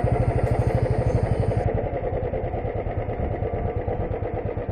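Motorcycle engine running at low speed, with a steady, evenly pulsing exhaust beat that eases off slightly as the bike slows.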